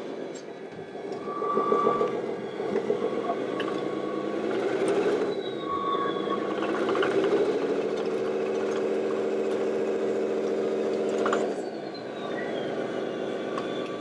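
Radio-controlled model truck or construction machine running. Its motor sound dips and rises in pitch, holds steady for a few seconds, then stops abruptly near the end.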